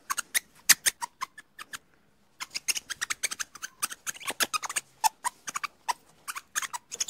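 Ring-tailed lemurs making a rapid, irregular series of short sharp clicks and squeaky chirps, with a brief pause about two seconds in.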